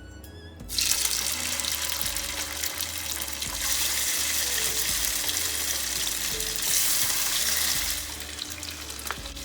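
Chicken thigh pieces frying in hot oil in a pan: a steady sizzle that cuts in suddenly about a second in and grows louder in the middle.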